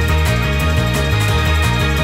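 Background music with a steady beat over a bass line that moves in steps.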